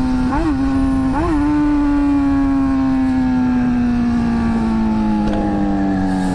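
Honda CBR600F4i inline-four sport-bike engine under way: the revs jump up and back twice in quick succession, then fall slowly and steadily as the bike rolls off the throttle, over steady wind rush.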